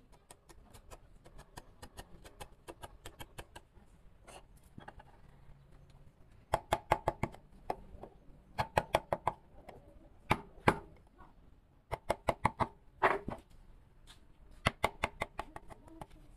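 Carving chisel struck with a mallet into wood: runs of quick, light taps, several a second, with short pauses between runs. The taps are faint at first and louder from about six seconds in.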